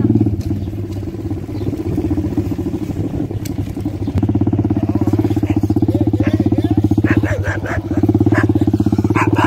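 Motorcycle engine running steadily while it carries riders. The engine eases off for a few seconds near the start and picks up again about four seconds in.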